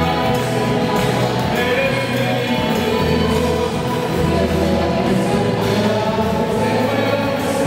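A Christian worship song sung by a choir, with bass notes changing about once a second under sustained voices.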